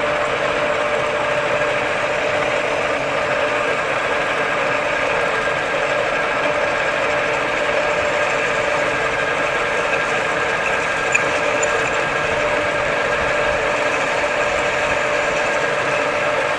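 Metal lathe running steadily, turning a spur gear blank, with a constant whine over the machine's hum.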